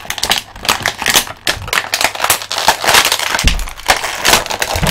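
Clear plastic bag crinkling and crackling as it is handled and pulled at close to the microphone, a dense run of crackles with a couple of low bumps.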